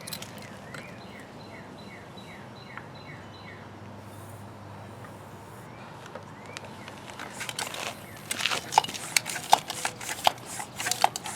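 A bird sings a quick run of about eight short falling chirps in the first few seconds. Near the end come a cluster of sharp, irregular clicks and knocks.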